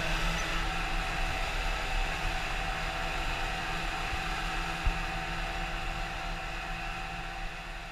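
John Deere 6110 tractor's four-cylinder turbodiesel engine running steadily under way, heard from inside the cab. A single sharp knock comes about five seconds in, and the sound slowly fades near the end.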